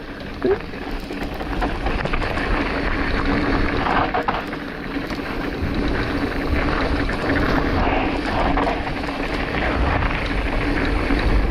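Mountain bike descending a dirt trail at speed: wind rushing over the camera microphone over the steady rumble of the tyres on dirt.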